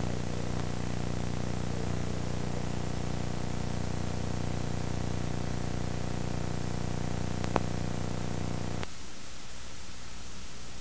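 Steady recording hiss with an electrical hum and no activity heard. A single click comes about seven and a half seconds in, and near nine seconds the hum drops out, leaving only hiss.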